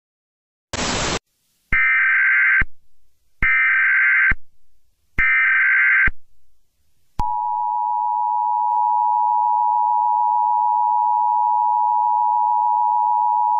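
Emergency Alert System tones. A short burst of noise is followed by three one-second bursts of SAME header data tones. From about seven seconds in comes the steady two-tone EAS attention signal (853 and 960 Hz), which marks the start of a new alert.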